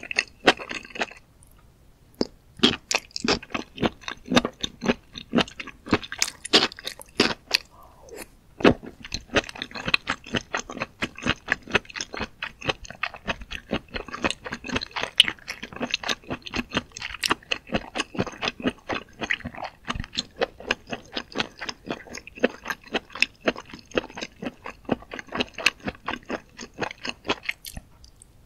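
Close-miked chewing of mushrooms in spicy sauce: quick, crisp crunches several times a second, with a short lull about a second in.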